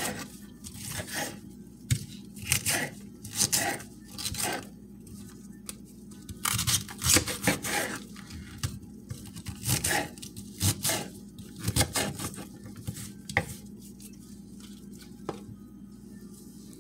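Kitchen knife cutting through a raw green cabbage on a wooden cutting board: a run of crisp, irregular crunching cuts with the blade knocking on the board. The cuts come thick and fast, then stop about three seconds before the end, with one last cut after that.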